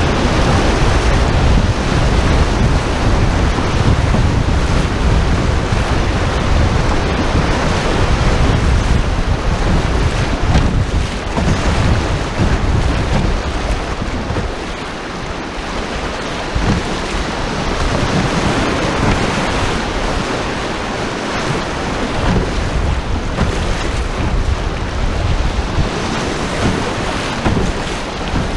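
Whitewater rapids rushing loudly around an open canoe as it runs downstream, with wind noise on the microphone. The low rumble drops somewhat about halfway through and the rush continues a little softer.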